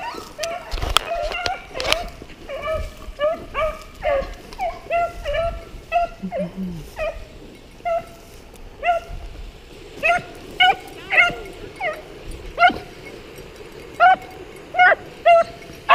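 Rabbit-hunting beagles baying on a rabbit's trail: a steady run of short, yelping calls, one to three a second, which means the hounds are on the scent and running the rabbit.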